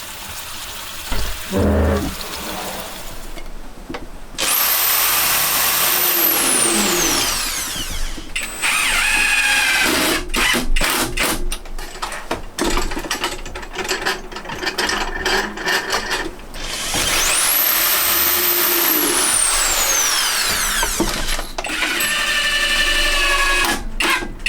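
An electric power tool runs twice for a couple of seconds, each time starting abruptly and winding down with a falling whine, with rapid clicks and knocks of work on wood in between.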